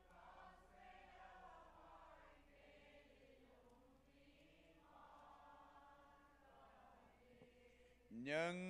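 Faint group singing of a hymn by a congregation, the voices blending into one wavering melody, with no lead voice close to the microphone.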